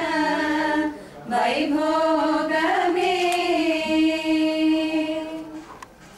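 A woman singing unaccompanied in a slow melody of long held notes. The voice breaks off briefly about a second in and fades away near the end.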